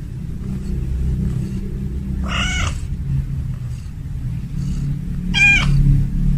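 Calico cat meowing twice: two short, high-pitched meows about three seconds apart, over a steady low rumble.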